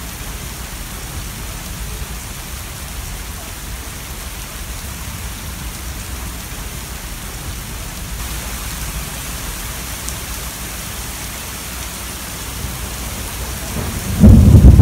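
Heavy rain pouring steadily onto a lake, a constant hiss. Near the end a sudden, very loud clap of thunder breaks in and rumbles on.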